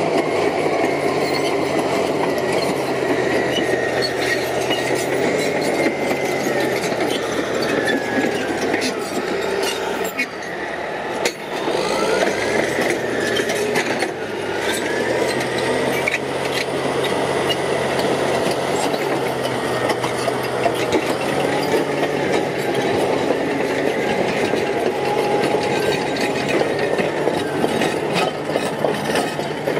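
Crawler bulldozer with a ripper working rocky ground: its diesel engine running steadily, with scattered clanks and a wavering high squeal in the middle.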